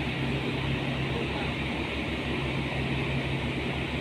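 Heavy diesel engine running steadily at idle, with an even low throb of about nine beats a second.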